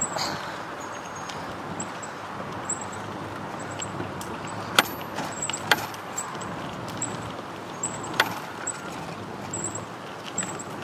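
Steady rushing noise of a bicycle ride, wind on the microphone and tyres rolling, with three sharp knocks about five, six and eight seconds in.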